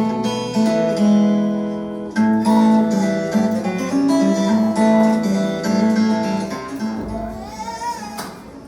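Acoustic guitar music: strummed chords that change every second or so, growing quieter near the end.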